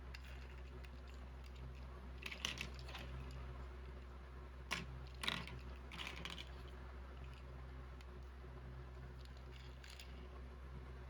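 Plastic Lego bricks clicking and clattering as they are handled, in scattered sharp clicks, the loudest a cluster about two seconds in and a few around five to six seconds in. A steady low hum sits underneath.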